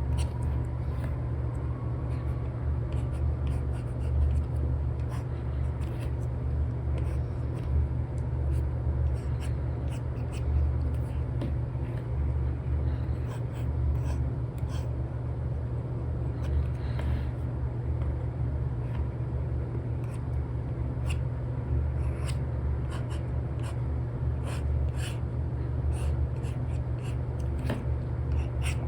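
Stylus scratching and tapping on a tablet screen with a paper-like film: an Apple Pencil with an Elecom tip making many short strokes and taps, over a steady low hum.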